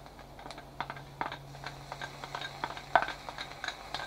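Chow mein sauce poured from a glass bowl into a hot non-stick stir-fry pan: a scatter of light, irregular clicks and pops over a low steady hum.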